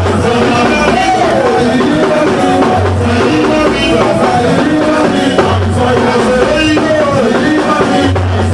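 Loud music with singing voices over drums and instruments, with a deep bass note sounding about every two and a half seconds.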